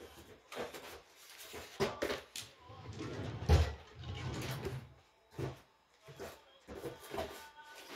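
Small items and their packaging being handled and put down on a table: irregular knocks, clicks and scraping, with a heavier thud about three and a half seconds in.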